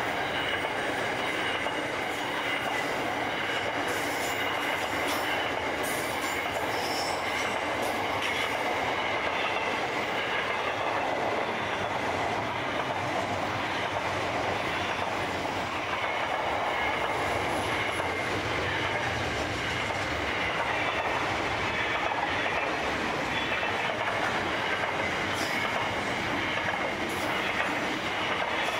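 Container wagons of a long Pacific National freight train rolling past on steel rails: a steady wheel rumble and clatter, with a thin high wheel squeal running through it.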